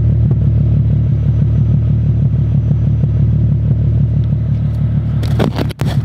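Nissan 350Z's 3.5-litre V6 idling steadily through an aftermarket A'PEXi single-exit exhaust, a deep even note. A short noise and a brief drop-out come near the end.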